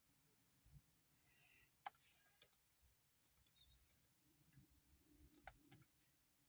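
Near silence with a few faint computer mouse clicks: a couple about two seconds in and a few more past five seconds.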